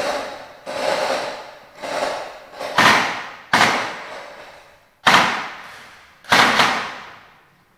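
Airsoft guns firing single shots: about eight sharp cracks at uneven intervals, each ringing on for about a second in a bare, echoing room.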